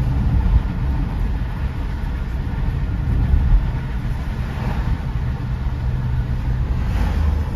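Road noise of a car driving, heard from inside the cabin: a steady low rumble of tyres and engine.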